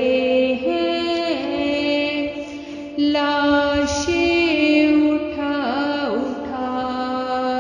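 A woman's voice chanting a noha, a Shia lament, in long held notes that slide down at their ends, unaccompanied by any instrument.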